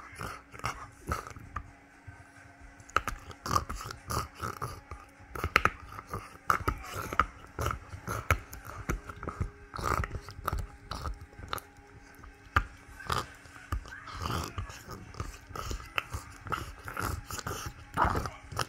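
French bulldog gnawing a chew bone: irregular chewing and crunching clicks of teeth on the bone, with no steady rhythm.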